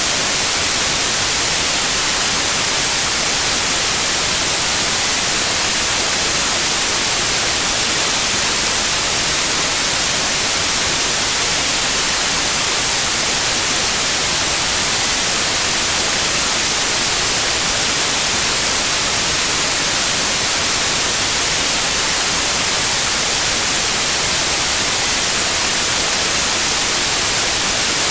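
Synthetic white noise hiss with a steady, very high-pitched 9645 Hz tone laid over it: a tinnitus sound-therapy signal. The tone cuts off about halfway through, leaving the hiss alone.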